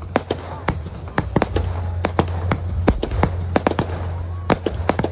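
Fireworks display: aerial shells going off in a rapid, irregular string of sharp bangs and pops over a continuous low rumble.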